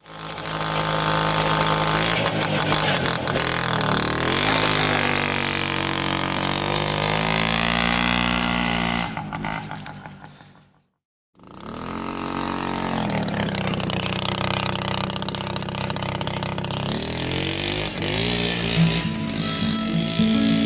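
An engine revving, its pitch rising and falling over several seconds. It cuts out for about a second midway, then comes back at a falling, then steady pitch. Music starts near the end.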